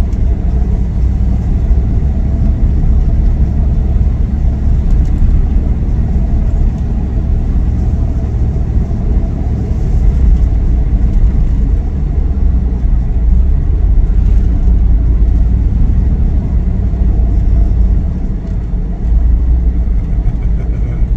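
Steady low rumble of a motor vehicle's engine and tyres, heard from inside the cabin as it drives slowly along a street. The rumble drops a little near the end.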